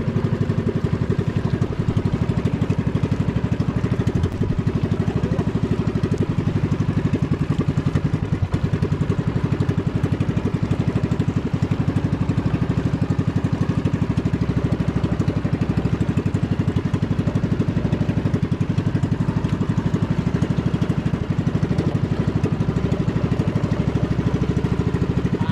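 Small engine of a motorized outrigger boat running steadily under way, with a fast, even firing rhythm.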